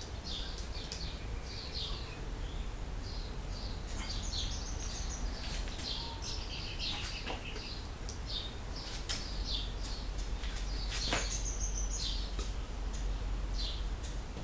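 Birds chirping and calling again and again, with a couple of sharp clicks about nine and eleven seconds in, over a steady low hum.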